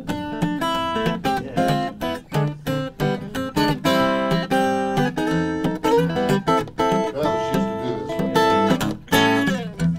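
Steel-string acoustic guitar played fingerstyle: a quick, continuous run of picked notes and chords with low notes underneath.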